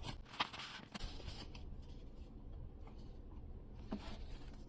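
Faint rustling and light clicks of a paper-art puzzle's packaging being handled and opened, mostly in the first second, with one more click near the end.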